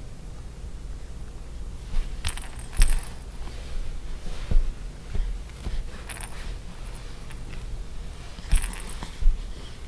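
Short metallic jingles with clicks, about four times, over a low rumble of handling.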